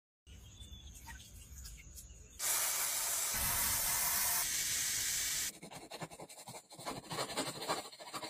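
Restoration sounds on a rusty tinplate toy submarine hull. First come faint handling sounds. About two seconds in, a loud, steady hiss of cleaning foam being sprayed onto the hull begins and lasts about three seconds. It then gives way to a quick run of scraping strokes as a metal tool works the rust off the tinplate.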